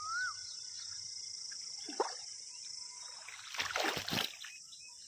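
A brief burst of water splashing a little past halfway, over a steady high drone of insects, with a short whistled call at the start.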